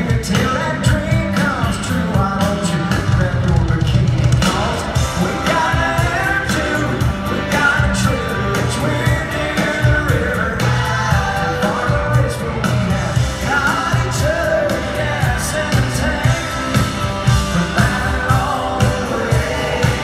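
A live country-rock band playing through an arena PA, with a male lead vocal singing over steady drums, bass and electric guitar.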